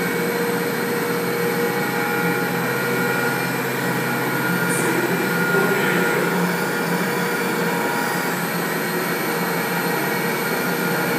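Steady, loud Lynx helicopter noise played back as a noisy test environment, with several constant whining tones over a broad rushing hiss, mixed with the whir of a small quadcopter's rotors as it hovers and flies.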